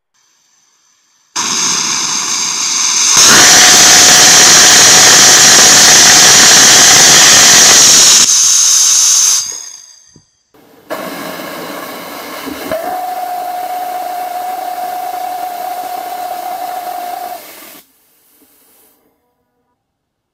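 Small amateur liquid-fuel rocket engine burning alcohol-water with gaseous oxygen: a hiss of gas flow about a second in, then a very loud steady roar with a faint steady note for about five seconds before it cuts off and fades. After a short gap a second, quieter run of the same hiss and roar follows for about seven seconds, with a steady note coming in partway through.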